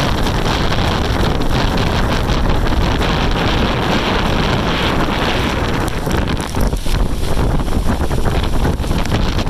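Strong storm wind gusting across a lake and buffeting the microphone, a loud, steady rushing noise with a heavy low rumble.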